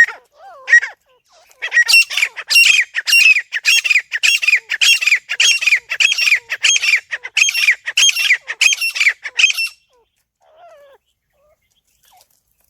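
A teetar (francolin) calling: a few separate notes at the start, then from about two seconds in a fast run of loud, shrill, evenly repeated notes, about three a second, that breaks off with about three seconds to go, leaving only faint notes.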